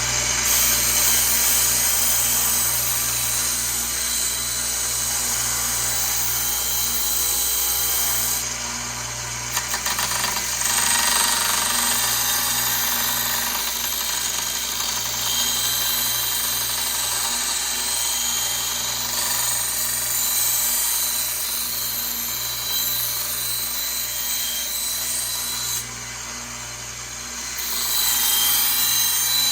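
Powered sharpening grinder running, with the steel blade of a butcher knife being ground against it to reshape the edge and take out dents; the grinding hiss eases off briefly twice as the blade is lifted, while the motor hum carries on.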